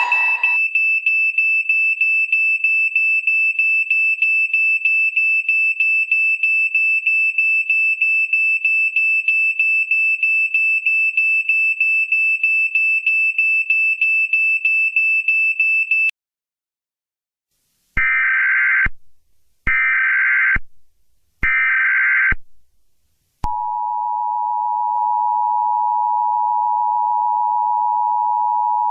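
A rapidly pulsing high-pitched alert beep for about sixteen seconds. After a brief silence come three short screeching bursts of Emergency Alert System digital header data. Then the steady two-tone EAS attention signal starts and holds.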